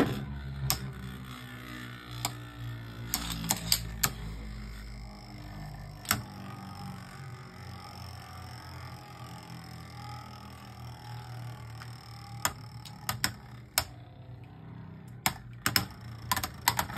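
Two Beyblade Burst spinning tops, one a Phantazus, whirring steadily in a plastic stadium, with sharp clacks as they strike each other and the stadium. The clacks come several at the start, a few at about 2 to 4 seconds, once near 6 seconds, then in a cluster from about 12 seconds and again near the end.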